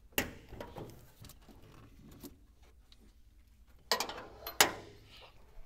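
Metal clinks and taps of a hand tool being worked on a car battery terminal to disconnect it. There is a clatter of small clicks in the first second or so, then two sharper metallic knocks near the end.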